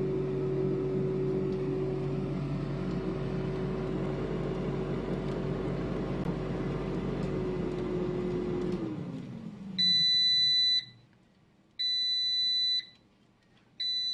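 Cosori air fryer's fan running steadily, then winding down and falling in pitch about seven seconds in as the cooking cycle ends. Then three long beeps, each about a second long and two seconds apart, signalling that the timer has run out.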